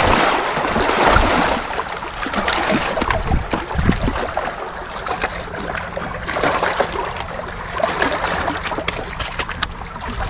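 Small waves splashing and lapping against riprap rocks at the water's edge, with a few sharp clicks near the end.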